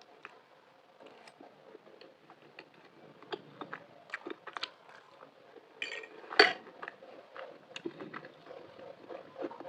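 Close-up eating sounds of macaroni: chewing and biting, with small clicks of a spoon against the plate scattered throughout and one louder bite or clink about six and a half seconds in.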